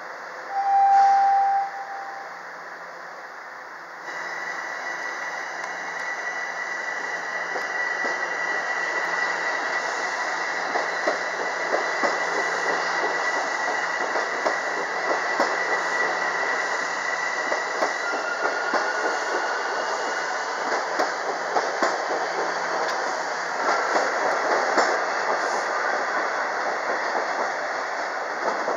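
Toronto Rocket subway train at a station: a single steady horn blast of about a second and a half near the start. Then a train runs along the platform with a steady high-pitched whine and many quick clicks of the wheels over the rails.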